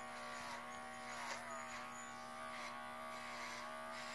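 Cordless pet clipper with a #10 blade running with a steady buzz as it clips the hair on an English Cocker puppy's cheek, its pitch dipping slightly twice.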